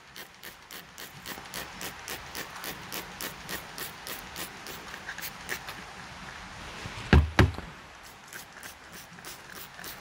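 Plastic trigger spray bottle squirting disinfectant onto a bundle of orchid pseudobulbs, a rapid run of short hissing squirts at about four a second that thins out towards the end. A brief loud thud about seven seconds in.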